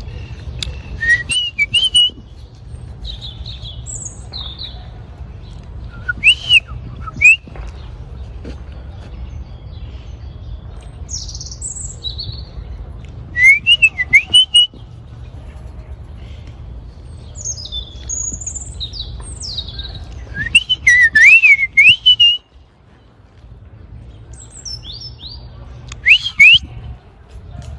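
European robin singing: short, high, warbling phrases of quick rising and falling notes, separated by pauses of a few seconds, over a steady low rumble.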